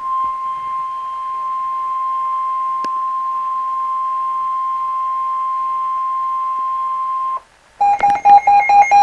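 Emergency Alert System attention tone for a severe thunderstorm warning: one steady, single-pitch tone held for about seven seconds, then cut off. After a short gap a rapid, repeated electronic beeping starts near the end.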